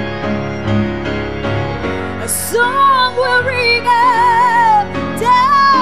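Live ballad performance: the backing band plays held chords for about two seconds, then a woman's lead voice comes in belting a long wordless line with a wide, wavering vibrato, and starts a second phrase near the end.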